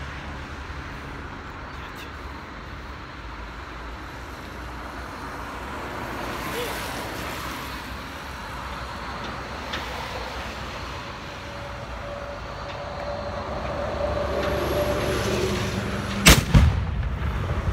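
A small muzzle-loaded field cannon fires a single ceremonial shot about 16 seconds in: one sharp bang with a short rumbling echo after it. Before the shot there is only steady outdoor background noise.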